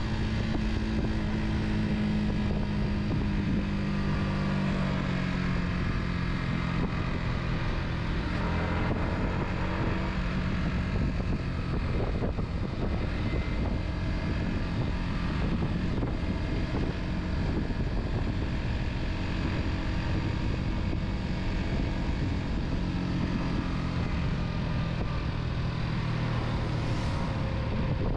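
Car engine running steadily while driving, over a constant rush of tyre and wind noise. The engine note drops in pitch about four seconds in, sinks under the road noise through the middle, and comes up again near the end.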